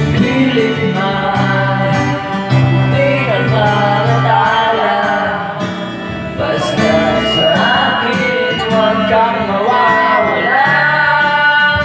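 A man singing into a microphone, his amplified voice over backing music with guitar.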